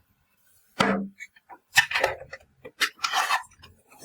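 Toy food pieces being handled and set down, clacking in sharp taps about a second apart, followed by a short scraping rustle near the end.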